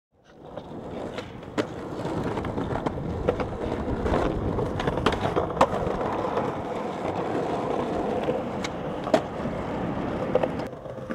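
Skateboard wheels rolling over concrete, a steady rough rumble. Sharp clacks of the board come through it every second or so.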